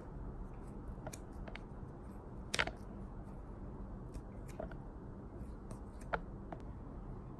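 Scissors snipping pieces of jerky dog treat: a few separate, crisp snips at irregular intervals, the loudest about two and a half seconds in.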